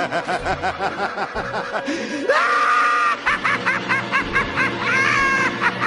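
Laughter sound effects: a quick, rhythmic ha-ha-ha laugh, then about two seconds in a much higher-pitched, squeaky laugh of short repeated ha's.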